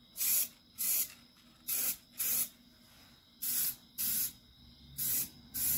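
Aerosol spray paint can hissing in about eight short bursts, mostly in pairs, as quick light passes of a first coat of paint are laid on.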